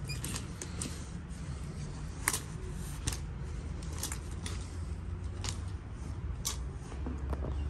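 Clothes hangers clicking against a metal rack rail as garments are pushed along one by one. The sharp clicks come irregularly, the loudest about two seconds in, over a steady low hum.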